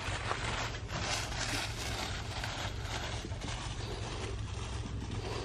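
Massey Ferguson MF 165 tractor's four-cylinder engine running steadily with a low, even hum.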